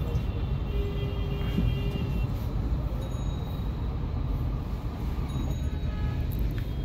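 Steady low rumble of engine and road noise heard from inside a Toyota car's cabin in slow city traffic, with faint high-pitched tones in the first two seconds.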